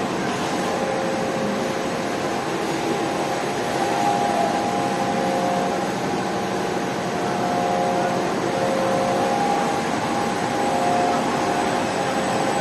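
Automatic A4 roll-to-sheet paper cutting line running: a steady mechanical hum and noise, with several steady motor tones that swell and fade.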